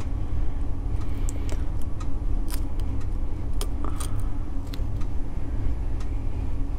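A handful of small sharp clicks and ticks as a fine metal tool works against the parts of a digital watch module while its circuit board is taken out, over a steady low hum.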